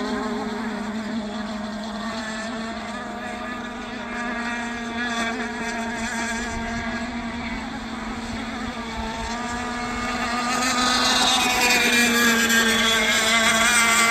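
Radio-controlled racing boat running on the water, its motor giving a steady pitched drone that grows louder and higher about ten seconds in.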